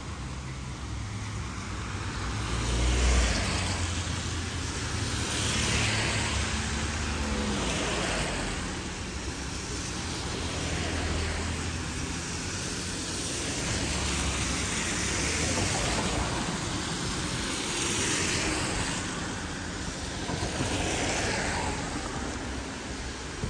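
Road traffic: cars passing one after another, the tyre noise swelling and fading every two to three seconds over a low rumble.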